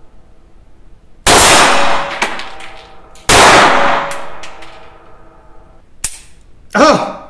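Two shots from a Dreyse M1907 pistol in 7.65 mm Browning, about two seconds apart, each ringing on for a good second in the small booth. A sharp, much quieter click follows a few seconds later.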